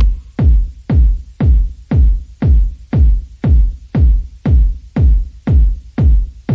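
Electronic dance music dominated by a deep kick drum, about two beats a second, each beat dropping in pitch.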